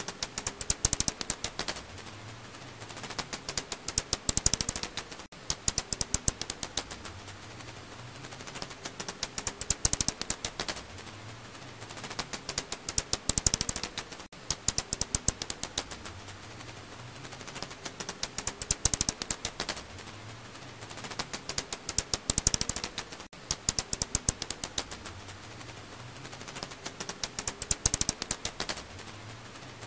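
Alashan pipistrelle bat (Hypsugo alaschanicus) echolocation calls, heard as rapid trains of clicks that swell into dense bursts every three to five seconds.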